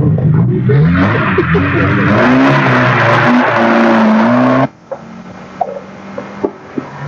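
Rally car engine revving hard and climbing in pitch through the gears as the car accelerates away, with a loud hiss of tyre and exhaust noise. About two-thirds through the sound cuts off abruptly, leaving a faint engine and a few clicks.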